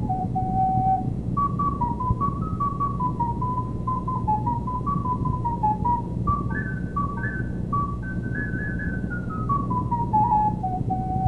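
Solo recorder playing a melody in quick stepwise runs that mostly fall, settling on a held low note near the end, over a steady low background hum.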